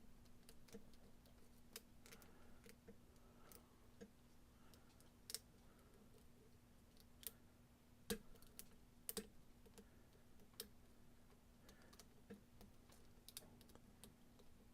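Faint, irregular clicks of a hook pick working the pins of a Yale mortise lock cylinder under clockwise tension, with a faint steady hum underneath.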